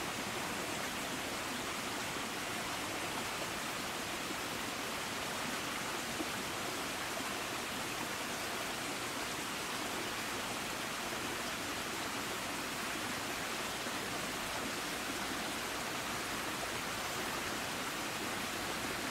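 Steady, even rushing hiss with no distinct events, like running water or a continuous noise bed.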